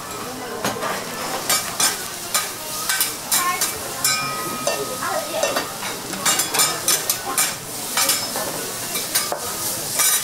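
Food sizzling on a flat steel teppanyaki griddle, with frequent sharp clicks and scrapes of metal spatulas on the hot plate.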